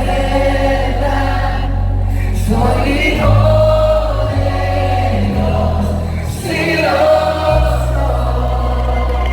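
Live worship music: a group of voices singing together over a band, with deep sustained bass notes that change every second or two.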